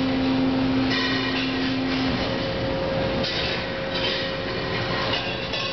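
Automated plasma weld line running: a steady industrial machine noise with a held tone that jumps up to a higher pitch about two seconds in, and several short hissing bursts.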